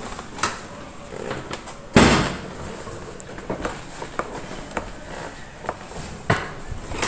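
Handling noise: fabric rubbing and knocking against a phone's microphone, with scattered clicks and a loud thump about two seconds in, then another sharp knock near the end.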